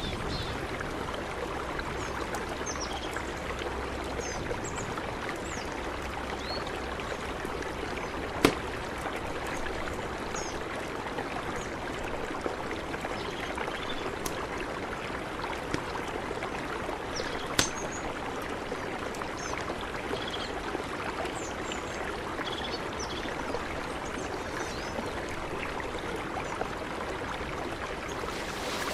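Mountain river rushing steadily, with a few faint high chirps over it and two sharp clicks, about a third and about two-thirds of the way through.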